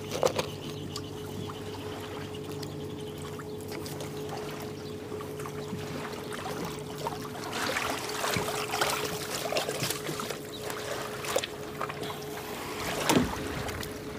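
Steady low mechanical hum with a constant tone, like a motor running at a distance. Splashing in shallow water partway through, and a sharp knock near the end.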